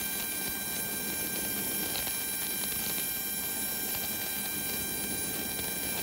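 Embraer jet's auxiliary power unit running steadily: a constant rush of air with several fixed high whining tones over it.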